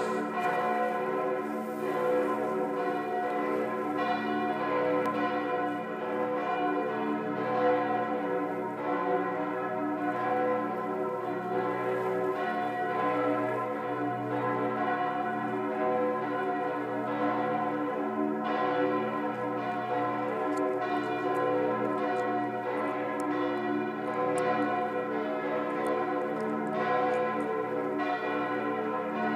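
Several church bells ringing together, struck again and again, their tones overlapping in a continuous peal.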